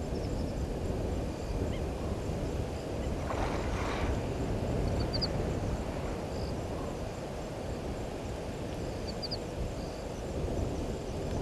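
Outdoor waterhole ambience: a steady low rumble, with small high chirps in quick triplets every few seconds and a brief rushing noise about three and a half seconds in.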